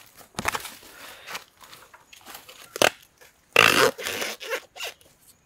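Dry leaves and bamboo twigs rustling and crackling in uneven bursts as a bamboo clump is handled, loudest in a crunching rustle about three and a half seconds in.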